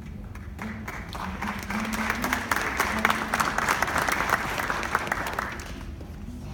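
Audience applauding, swelling about half a second in and dying away near the end.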